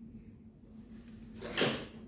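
A single sudden clunk from the chiropractic treatment table as a thrust adjustment is delivered to the lower back, about one and a half seconds in, over a faint steady hum.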